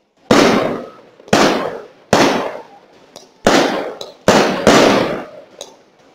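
Aerial firework shells bursting: six sharp bangs about a second apart, each dying away over half a second.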